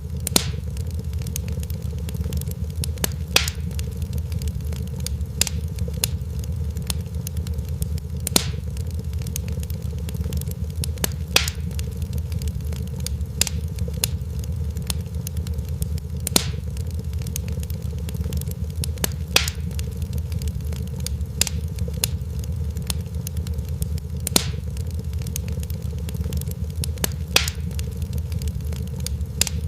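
Crackling fire: a steady low rumble of burning with sharp pops and snaps every second or so, a few of them louder than the rest.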